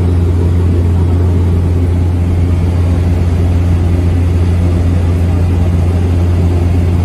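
Small propeller airplane's engine and propeller drone heard inside the passenger cabin in flight: a loud, steady, deep hum that does not change.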